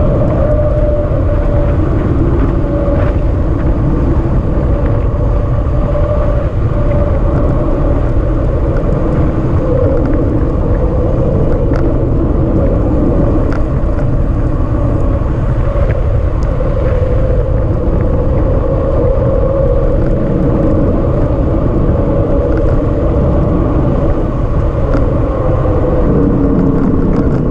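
Loud wind rush buffeting the microphone of a camera moving at descent speed, a steady low rumble with a faint hum over it. Near the end the hum drops in pitch as the descent slows.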